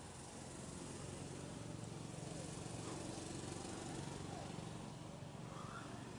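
Steady outdoor background noise with faint, distant people's voices.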